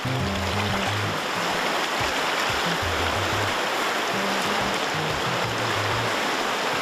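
A fast river rushing over rapids with a steady rush of water, under background music with a low bass line.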